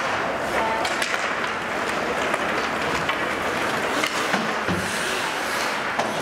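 Ice hockey play on the rink: skates scraping the ice under a steady din, with scattered sharp clacks of sticks and puck.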